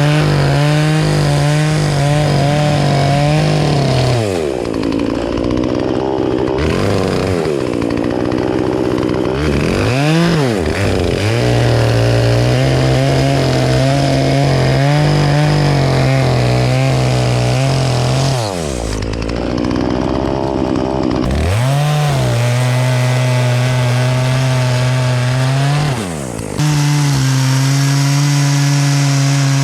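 Chainsaw running at high revs while cutting a tree. The engine pitch sags and climbs back several times as the chain is loaded in the wood, with a long drop a few seconds in and another past the middle.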